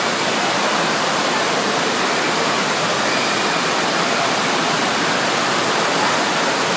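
Steady rush of water from a FlowRider surf simulator: a fast sheet of pumped water streaming up the padded slope beneath a bodyboarder.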